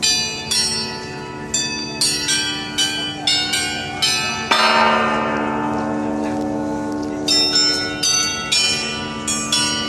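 Tuned bells of a bell monument ringing a tune: quick strikes at different pitches that overlap and ring on. A bigger chord about four and a half seconds in is held for a couple of seconds before the quick strikes start again.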